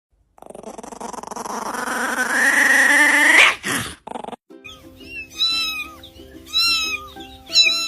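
A dog whining, rising in pitch and getting louder before cutting off, then short high whimpers repeating about once a second over background music.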